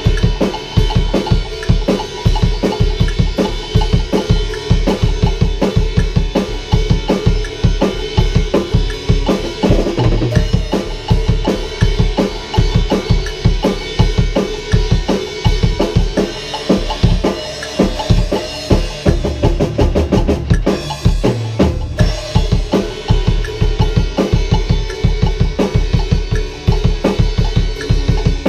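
Pearl drum kit played hard and fast, with bass drum, snare and cymbals in a dense, driving rock pattern of many strokes a second.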